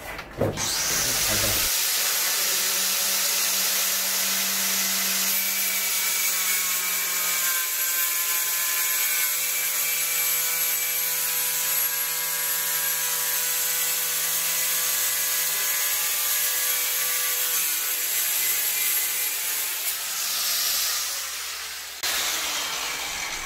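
Keyang angle grinder with a diamond blade, run in a 45° chamfering guide, cutting a bevel along a tile edge: a steady high whine with a grinding hiss. It starts about half a second in, runs for about twenty seconds and cuts off near the end.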